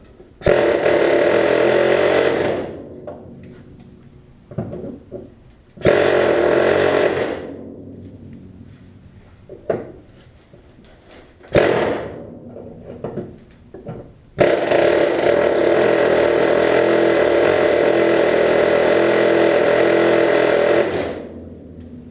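Pneumatic air chisel hammering a steel door hinge pin upward to drive it out, in bursts: about two seconds, then about a second and a half, a brief blip, and a long run of about six and a half seconds, with light metal clinks between.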